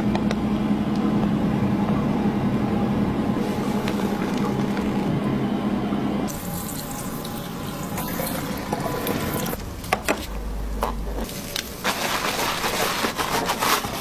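Water from a handheld salon shower head running over wet hair at a wash basin, a steady rush with a low hum for about the first six seconds. Near the end it gives way to wet crackling squelches as gloved hands work shampoo lather into the hair.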